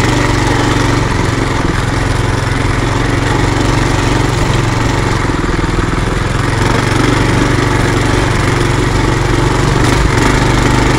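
Trail Master MB200 mini bike's 196cc single-cylinder engine running steadily while the bike is ridden along.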